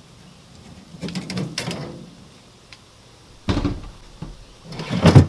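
Metal rattling and clicking of a Masterbuilt electric smoker's wire rack as a brisket is set down on it, then two heavy knocks as the smoker's door is pushed shut, the second near the end the loudest.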